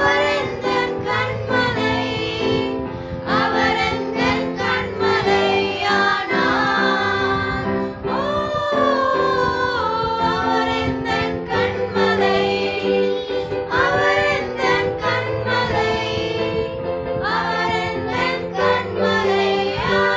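A Sunday School action song: voices singing a melody over a steady instrumental backing.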